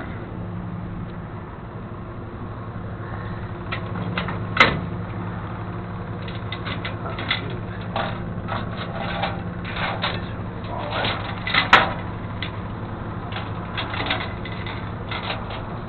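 Flatbed tow truck engine idling steadily, with irregular knocks and clatter starting about four seconds in and two sharper bangs, about five and twelve seconds in.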